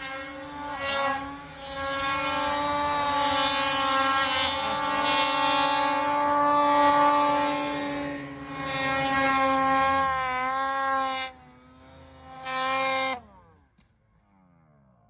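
Snowmobile engine running at high revs, a steady high-pitched whine that dips in pitch about ten seconds in. It drops out about eleven seconds in, comes back briefly, then cuts off suddenly, leaving near quiet.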